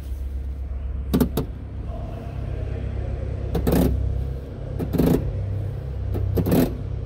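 The Messerschmitt Bf 108's hand-cranked flap wheel and its chain drive being worked to lower the flaps, giving several short, dull clunks spaced a second or so apart over a steady low hum.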